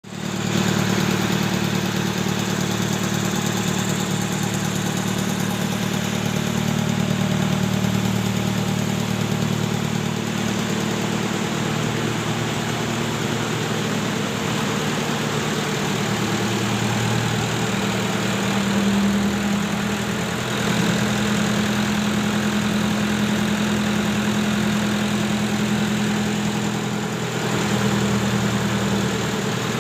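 A boat's lighting-generator engine idling steadily after being brought back to life from long disuse, its pitch shifting slightly about two-thirds of the way through.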